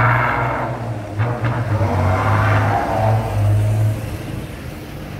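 A BMC 827 truck's diesel engine blares through a loud aftermarket exhaust as the truck pulls away. It revs in several surges and grows fainter after about four seconds as the truck moves off.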